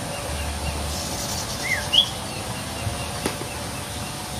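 Birds chirping in rural countryside: a couple of short, sharp chirps that slide in pitch about two seconds in, and a faint repeating pip early on. Under them runs a steady faint hum and low rustling.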